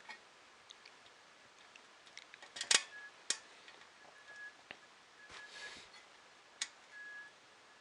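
Small plastic and metal printer parts being handled and fitted together: scattered sharp clicks and taps, the loudest a quick clatter about three seconds in, with a short scraping rustle a little past the middle.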